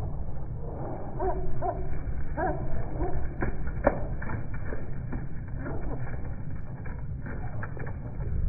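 Budgerigars chirping and chattering in short repeated calls, with scattered sharp clicks over a steady low rumble. The sound is dull and muffled, with no high treble at all.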